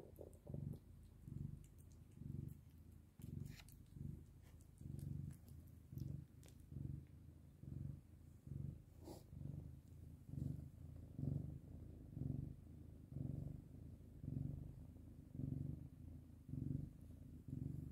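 A cat purring steadily, the low rumble swelling and fading about once a second with each breath in and out.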